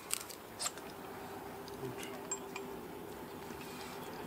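A few light clicks and clinks, mostly in the first second, from hard parts being handled after the cordless hammer drill has stopped, with a faint steady hum underneath.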